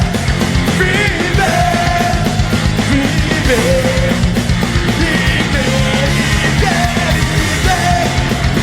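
Loud punk rock music with distorted guitars, driving drums and a shouted vocal line.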